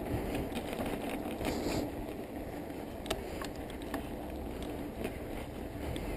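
Bicycle coasting fast down an asphalt road: a steady rush of wind and tyre noise, with a few sharp clicks and rattles from the bike about a second and a half, three and four seconds in.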